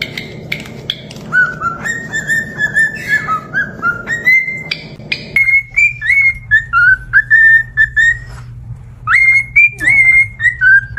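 Pet parrot whistling a string of short, clear notes that step up and down in pitch like a tune, with a brief pause a little past the middle.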